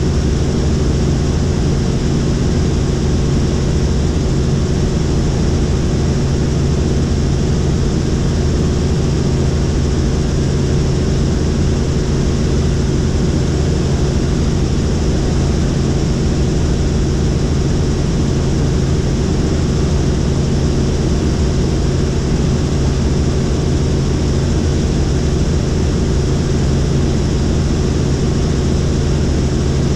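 Helicopter in steady flight: rotor and engine running with an even, unchanging drone.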